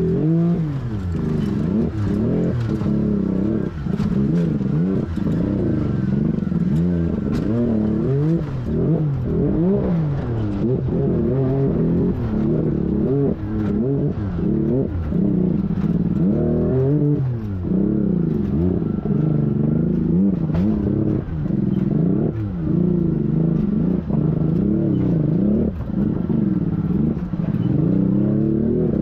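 Can-Am Maverick R UTV's turbocharged three-cylinder engine, heard from inside the cab, revving up and down over and over as it is driven through rocks, with scattered knocks and clatter from the vehicle.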